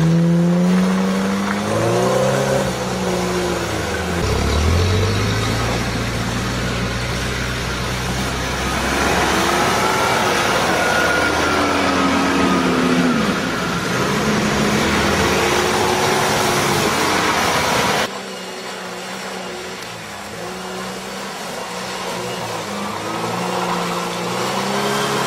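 Off-road vehicle's engine revving, its pitch rising and falling again and again as it works. About two-thirds of the way through the sound drops suddenly to a quieter engine, which then slowly grows louder.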